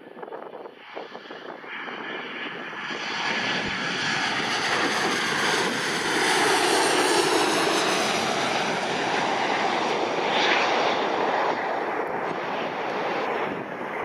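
Boeing 737 jet airliner on final approach passing low overhead: its jet engines' noise swells over the first few seconds, peaks as it goes by, and stays loud, with a slow sweeping shift in pitch through the noise.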